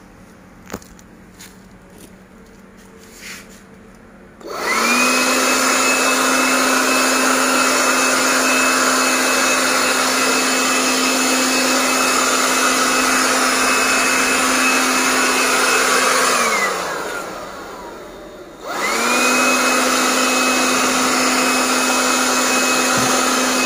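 LMLAVA 18V cordless blower-vacuum switched on about four seconds in, its motor running at a steady high whine with a rush of air as it blows dust. Some twelve seconds later it winds down and stops, then is switched on again about two seconds after that. A few light handling clicks come before it starts.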